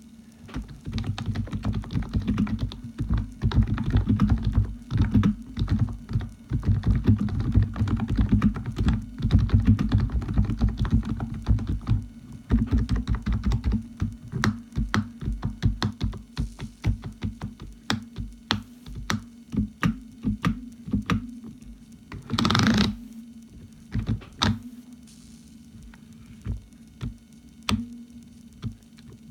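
Typing on a Topre keyboard fitted with BKE Redux domes. Dense runs of keystrokes give way to slower, separate key presses, with one longer noisy burst about two-thirds through. A steady low hum runs underneath.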